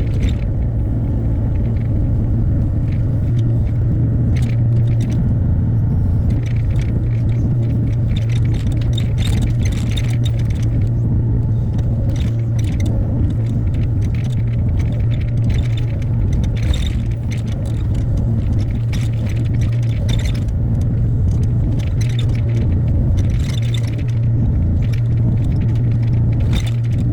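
Hyundai HX60A mini excavator's diesel engine running steadily under work, with scattered short scrapes and clanks.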